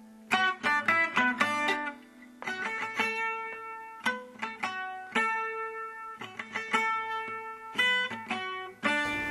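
Background music: a guitar playing a melody of short plucked notes.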